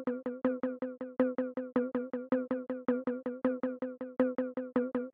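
Electronic background music: a fast, even run of short synthesizer notes, about seven a second, each fading quickly, over a steady held low note.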